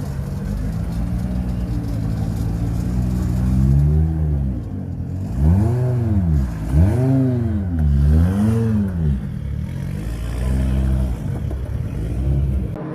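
Audi Quattro Group B rally car's turbocharged five-cylinder engine running steadily, then revved up and let fall about four times in quick succession before settling back, with the sound dropping away suddenly near the end.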